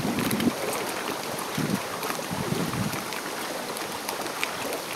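Steady rushing noise of storm wind and rain outdoors, with faint scattered ticks.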